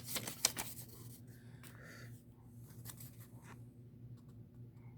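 Handling of a mug and its packaging: a cluster of clicks and taps in the first second, a brief rustle about two seconds in, then a few faint ticks, over a steady low hum.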